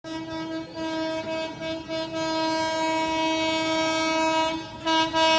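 Locomotive horn of an approaching train: a few short blasts, then one long held blast that breaks off briefly near the end.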